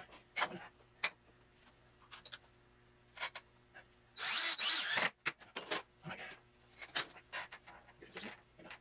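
Cordless drill run once for about a second, its pitch rising as it spins up, amid short knocks and clatter of handling wood and tools.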